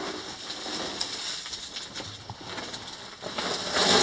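Footsteps scuffing and crunching on loose rock rubble and gravel, with clothing rustle, getting louder near the end.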